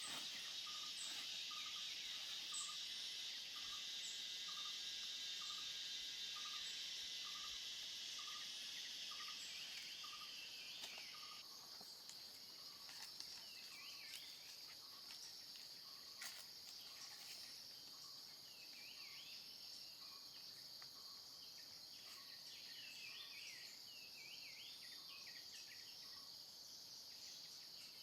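Forest ambience: a steady high insect drone, with a short call repeated about once a second through the first half, fading later. Birds chirp in short bursts in the second half.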